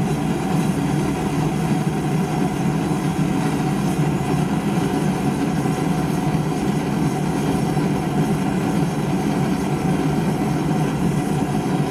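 Blacksmith's forge running with a steady, even rush and no hammer blows, as the iron hook is brought back up to heat.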